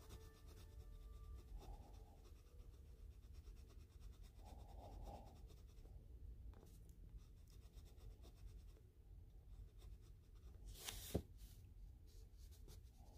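Prismacolor Scholar coloured pencil scratching faintly across the paper of a colouring book in short strokes. One sharper tap comes about eleven seconds in.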